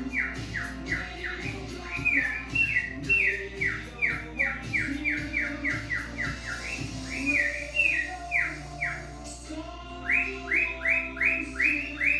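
Male cockatiel whistling a fast run of short notes that each slide downward, about three to four a second, pausing briefly about two-thirds of the way through before starting again, over background music.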